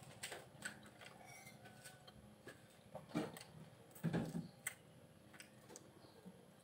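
Faint scattered clicks and cracks of lansones fruit skins being split and peeled by hand, with two louder, softer sounds about three and four seconds in.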